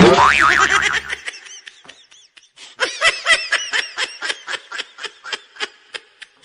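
Laughter: a long run of short 'ha-ha' bursts, about five a second, faint at first and louder from about three seconds in, stopping shortly before the end.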